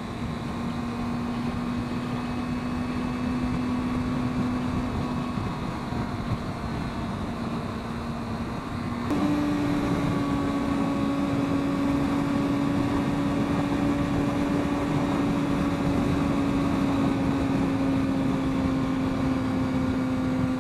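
Motorcycle engine running steadily at freeway speed, with wind rush over the rider's microphone. About nine seconds in, the engine note steps up slightly and gets louder, then holds steady.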